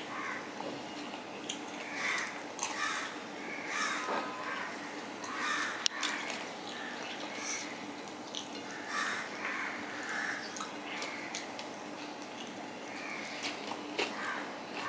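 Close-up eating sounds of a man eating rice and fried hilsa with his fingers: small wet clicks and squishes from mixing food on a steel plate and chewing, with one sharp click about six seconds in. Short harsh calls recur every second or two in the background.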